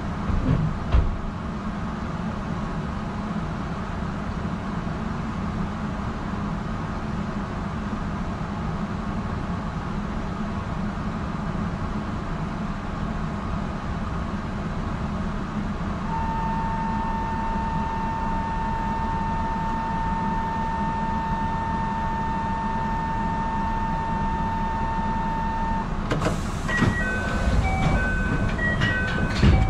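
Steady low electric hum of a stationary electric train waiting to depart. About halfway through, a steady electronic departure buzzer sounds for about ten seconds and stops; then a short run of high chime notes plays and a door shuts with a thump near the end.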